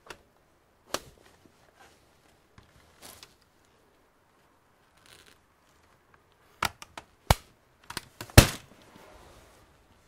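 Sharp plastic clicks and snaps from the Acer Aspire laptop's bottom cover as it is pried away from the case and its clips let go: a couple of single clicks at first, then a quick run of snaps in the second half, the loudest near the end.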